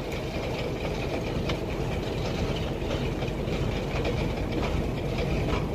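Heavy diesel tow truck engine running steadily with a low rumble, with faint irregular clicks and clatter, while it works to recover the overturned truck.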